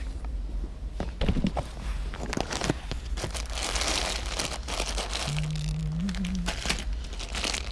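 Crinkling and rustling with many light clicks: a bin of bead and crystal necklaces being rummaged through by hand.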